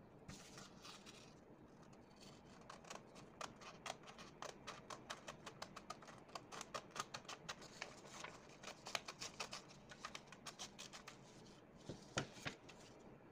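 Scissors cutting through a sheet of paper in a long run of quick, short snips, with a couple of louder clicks near the end.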